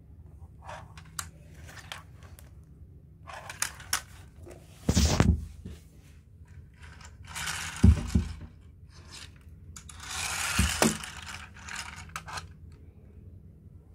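A small model bus and its plastic packaging being handled on a tabletop: scattered clicks and taps, a thump about five seconds in as the model is set down, then two spells of plastic rustling, each with a sharp knock.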